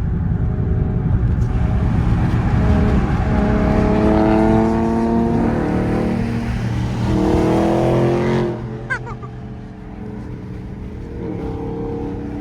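A car engine with a loud exhaust, accelerating hard in two pulls, its pitch rising each time; the sound drops off sharply about eight and a half seconds in.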